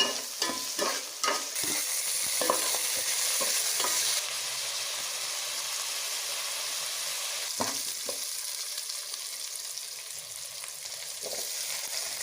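Chopped onions and vadagam frying in oil in a kadai, a steady sizzle, with quick ladle strokes scraping the pan in the first couple of seconds and once more about seven seconds in.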